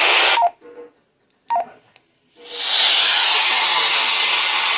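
Emergency Alert System data burst, the last of a series of bursts, cutting off about half a second in. After a short near-silent gap with a brief blip, steady radio hiss starts about two and a half seconds in.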